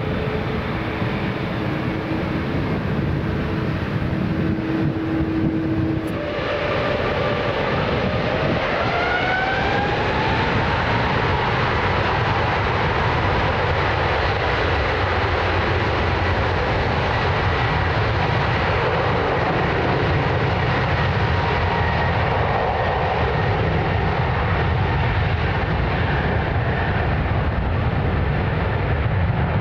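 Twin turbofan engines of a Boeing 777 airliner spooling up for takeoff. About six seconds in, the sound changes abruptly, and the engine whine rises over a few seconds, then holds as a steady high tone over a heavy rumble at takeoff thrust.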